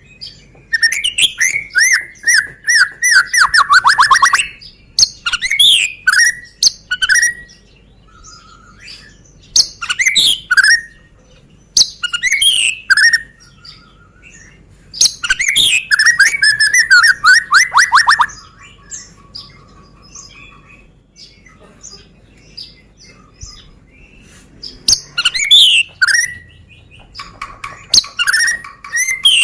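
White-rumped shama of the Medan type singing: loud bursts of varied whistled phrases, several of them rapid trilled runs of notes, with short pauses between bursts.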